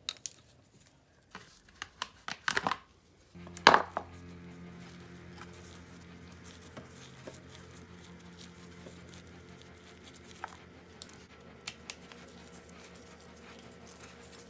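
Hand tools and bike parts being handled: a few knocks and rattles, the loudest a sharp clank just under four seconds in, then occasional light clinks. Background music runs from about three seconds in.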